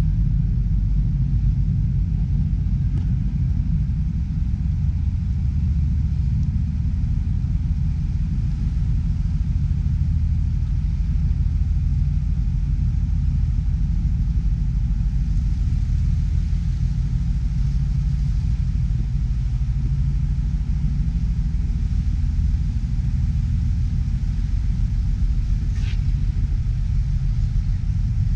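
Steady low rumble of a passenger ferry under way.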